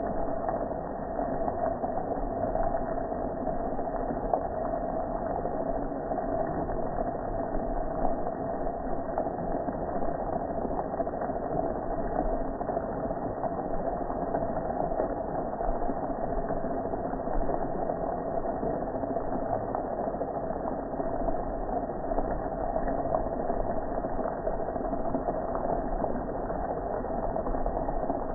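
Pressure washer running steadily, its water jet spraying onto a metal gas grill.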